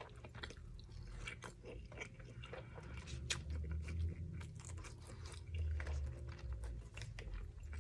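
A person chewing and biting food close to the microphone, with many small crisp crunches and wet mouth clicks.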